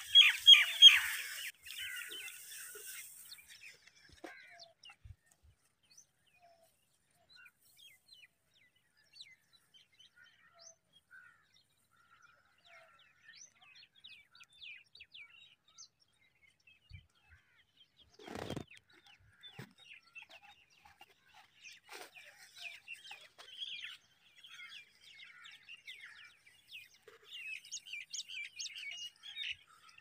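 Birds chirping: a loud burst of rapid short chirps over a rustling rush in the first two seconds, then faint scattered chirps. A brief rustle comes a little past the middle, and the chirping picks up again near the end.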